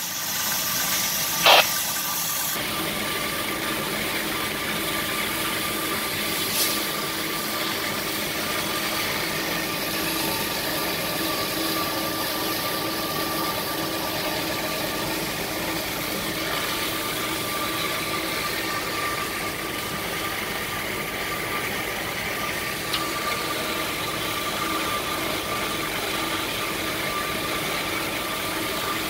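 Uzay 420 metal-cutting band saw running with its blade partway through a thick steel pipe under coolant: a steady machine hum with a constant whine. A high hiss cuts off about two and a half seconds in, and there is a single click just before it.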